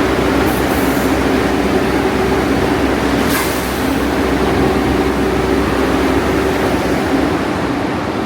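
New York City subway train running on the tracks: a loud, steady rumble with a humming tone, and a brief sharp high-pitched noise about three seconds in.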